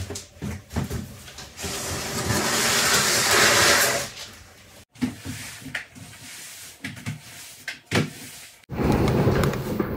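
Household clatter of tidying and moving things: knocks, clicks and a cupboard or drawer being handled, with a loud rushing hiss lasting about two seconds near the start. The sound breaks off abruptly twice.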